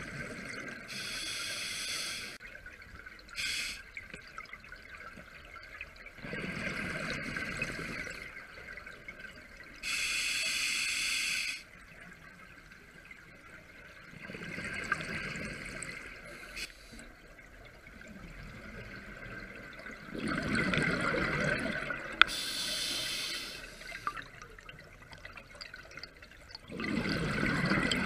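Scuba diver breathing through an open-circuit regulator underwater: sharp hissing inhalations alternating with gurgling rushes of exhaled bubbles, about four breaths, slow and evenly spaced.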